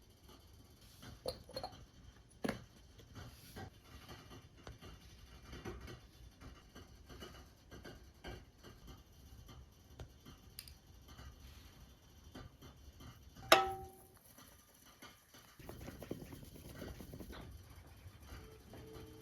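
Scattered light knocks and clatter of things being handled, with one sharp clink about thirteen seconds in that rings briefly, then a soft rustling stretch. Guitar music comes in at the very end.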